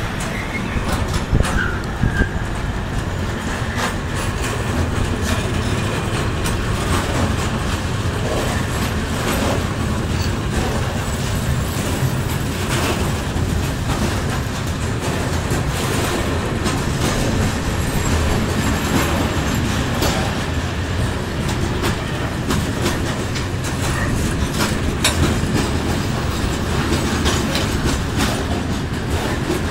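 Freight train of open-top PKP Cargo wagons rolling past at close range: a steady rumble of steel wheels on the rails, with irregular clicks and clatter from the wheels and couplings.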